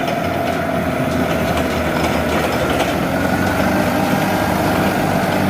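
A vehicle engine idling steadily with an even low rumble.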